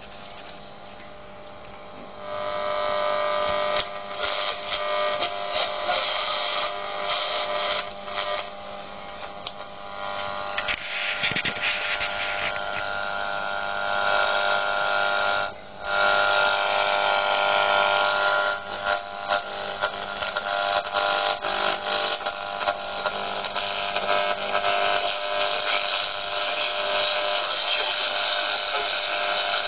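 Homebuilt transistor regenerative shortwave receiver putting out static and hum through its loudspeaker, off-station while it is tuned: a hissing, buzzing noise threaded with several steady tones. It starts faint, comes up strongly about two seconds in, and drops out briefly about sixteen seconds in.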